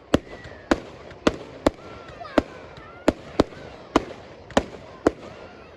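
Fireworks going off in a quick, uneven series of sharp bangs, about ten in under six seconds, over a background of crackle.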